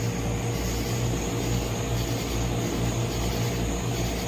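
Aircraft overhead, a steady low engine drone with a slow throb.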